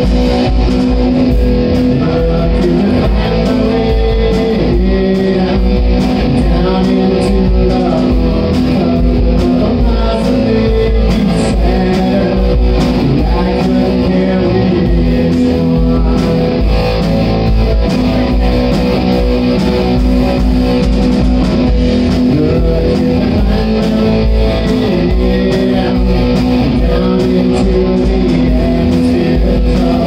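Live rock band playing: electric guitar, bass guitar and drum kit.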